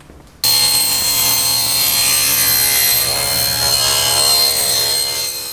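Table saw running and cutting through a boat stem form, trimming a strip off its bottom edge. The loud, steady saw sound starts abruptly about half a second in and falls away right at the end.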